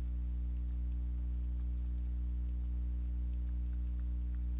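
Steady low electrical hum with a stack of overtones, with faint light ticks of a stylus tapping on a tablet screen while writing.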